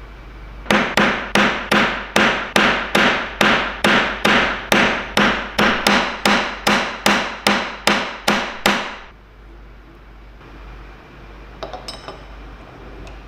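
Hammer blows on metal: about twenty sharp, evenly paced strikes, roughly two and a half a second, each ringing briefly. They stop about nine seconds in, and a few light clicks follow near the end.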